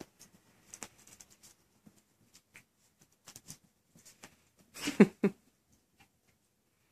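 Miniature Schnauzer puppies moving about and playing, with scattered light scratches and clicks. About five seconds in a puppy makes two short, loud noises in quick succession.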